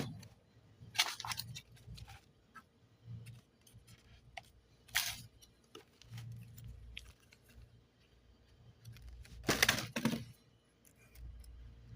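Short bursts of rustling and crinkling as modelling clay and its foil packaging are handled: one about a second in, a brief one near the middle, and the loudest near the end, with faint clicks in between.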